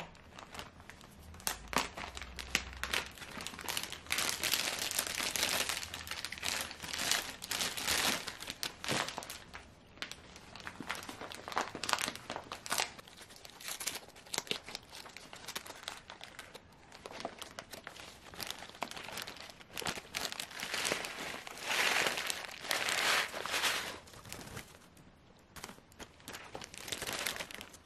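A clear zip-lock plastic bag and a packet of rolled oats crinkling and rustling as they are handled and the oats are moved from the torn packet into the zip-lock bag. The rustling comes in uneven spells, loudest about four to nine seconds in and again about twenty-one to twenty-four seconds in.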